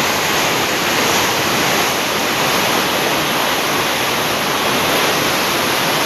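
Loud, steady rush of water, an even noise with no breaks.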